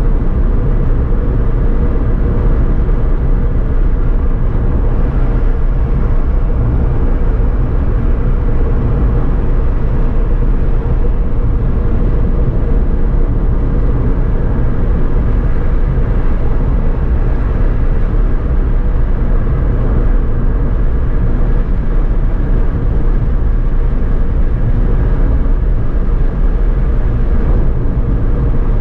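Steady low rumble of road and engine noise inside a small car, likely a Suzuki Alto, cruising along a highway, with no changes.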